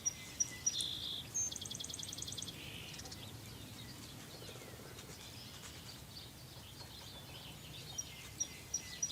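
A songbird singing: a few short, high, thin notes followed by a fast buzzy trill, with the same phrase starting again near the end.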